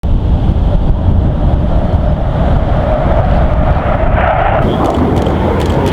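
Military fighter jet engine noise, a loud steady rumble with a hissing tone that brightens about four seconds in.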